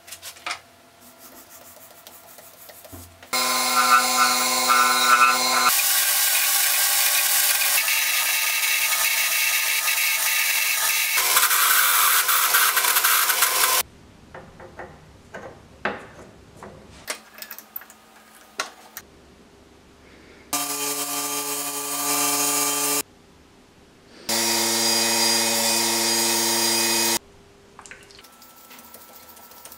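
A wood lathe running in three spells, each switched on and cut off abruptly, with a steady motor whine that steps to new pitches and a hiss of abrasive or tool on the spinning lime-wood maraca head. Between the spells come light clicks and taps of handling.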